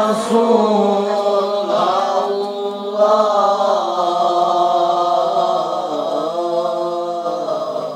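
A man chanting Qur'anic recitation in a melodic style through a microphone, drawing each phrase out in long held notes that waver up and down, then breaking off at the end.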